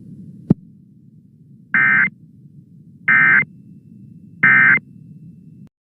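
Emergency Alert System SAME data tones: three short, identical buzzy bursts about a second and a half apart, the end-of-message code that closes the broadcast alert. A low hum runs under them, with a single click about half a second in, and everything cuts off near the end.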